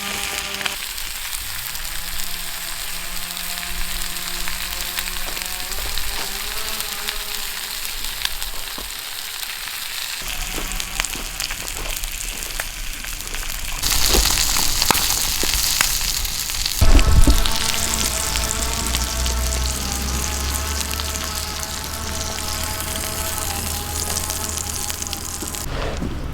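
Food sizzling and frying in a campfire frying pan, the sizzle growing louder about halfway through, with a brief loud bump a few seconds later. Soft background music plays over it.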